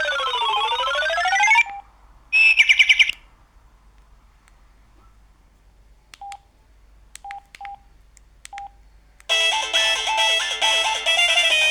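Samsung SGH-E330N mobile phone playing its built-in ring and alert tones through its speaker. First comes a siren-like tone sweeping up and down, then a short warbling trill, then a few short beeps at one pitch. A polyphonic melody starts near the end.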